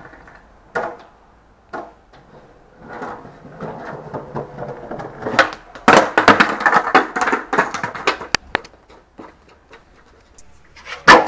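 Skateboard clacking and rolling on concrete, then a stretch of knocks and scuffling. Near the end comes a single loud crack as a handheld action camera hits the pavement, its housing breaking.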